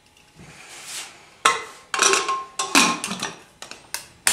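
Aluminium pressure cooker lid being fitted and locked shut: a series of sharp metal clanks and scrapes, with a brief metallic ring about two seconds in.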